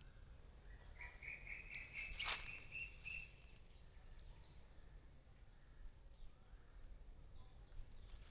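Garden ambience: an insect trilling steadily in a high, pulsing tone. A bird calls a quick run of repeated notes starting about a second in, with a single sharp click just after two seconds.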